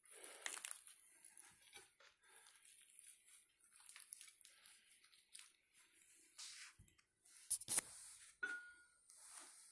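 Faint crackling and rustling of a crusty French bread po' boy, with lettuce and fried oysters, being pressed and squeezed closed by hand. A couple of sharp knocks come about seven and a half seconds in.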